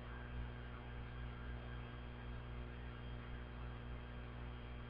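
Steady low electrical hum with a faint hiss, unchanging throughout: mains hum in the recording.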